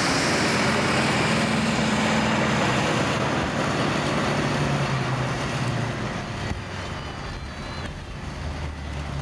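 Cars cruising past on a city street: a passing car's engine note and road noise, loudest in the first few seconds and easing off about six seconds in.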